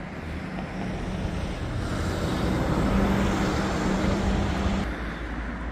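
1971 Dodge Challenger convertible driving slowly: a steady engine hum with road and wind noise, swelling a little in the middle and easing off near the end.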